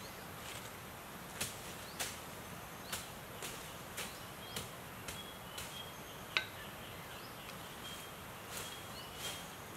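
A series of short, sharp swishes or light knocks, about two a second, with one louder crack a little after the middle, over a steady outdoor background with faint brief chirps.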